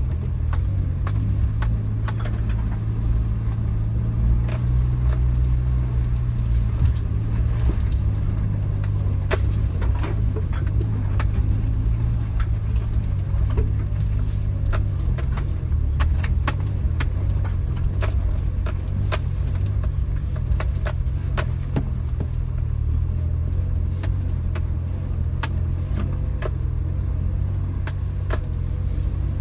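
Suzuki Jimny on the move: a steady low engine drone, with many sharp clicks and rattles scattered throughout.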